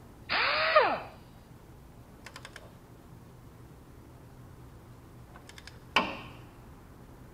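A click-type torque wrench's ratchet clicking in short bursts of three or four clicks while tightening a transmission pressure switch, with a sharp metallic knock about six seconds in. It opens with a brief loud sound that falls in pitch.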